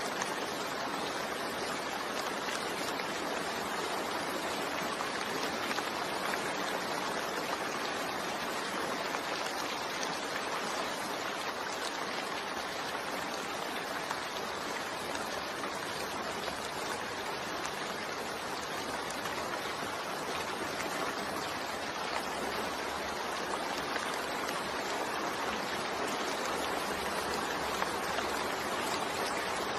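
Steady rain falling, a continuous even hiss of drops with no thunder or other distinct sounds.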